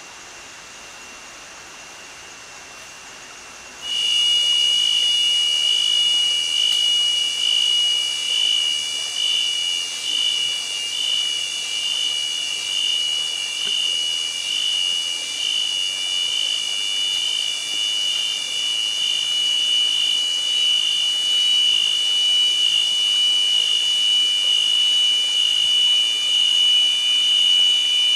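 A cicada chorus: a loud, steady, high-pitched electric-sounding drone with a slight pulse. It starts suddenly about four seconds in, out of a much fainter version of the same drone.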